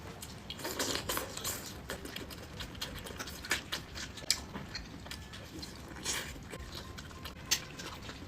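A person chewing and biting into a chikuwa sausage (a fish-cake tube with a smoked sausage inside), with irregular small clicks.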